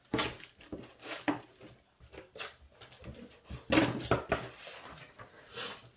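Rustling and knocking of paper and plastic packaging as planners and their accessories are handled, in a run of short irregular bursts, loudest about four seconds in.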